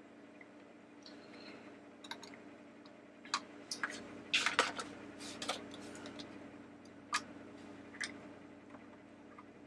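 Irregular clicks and light knocks of hard plastic parts and hand tools being handled: the plastic base shifted against the teacup mechanism and screwdrivers picked up off the work mat. The clicks come as a scattered cluster, a few close together around the middle, then single ones near the end.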